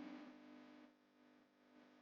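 The background music fades out toward near silence: held guitar notes with heavy effects die away, getting quieter about a second in.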